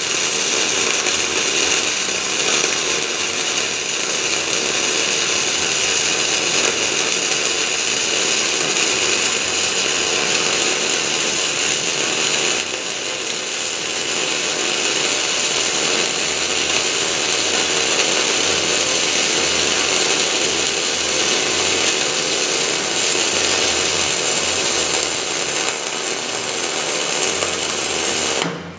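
Electric welding arc on the forwarder's blade, crackling and hissing steadily in one long continuous bead, then cutting off suddenly near the end.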